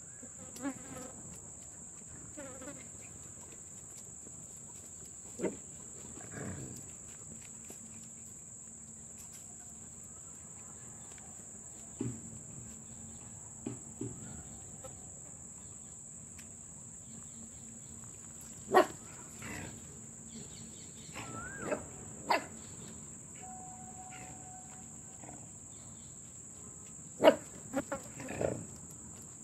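Crickets chirring steadily in a high continuous trill, with short sharp yelps and squeals from puppies at play every few seconds, the loudest about two-thirds through and a cluster near the end.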